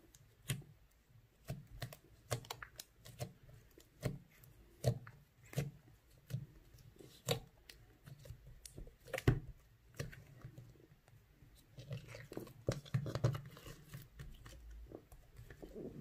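Fingers pressing and poking slightly sticky, melted slime in a tub, making irregular sticky clicks and pops as they push in and pull out.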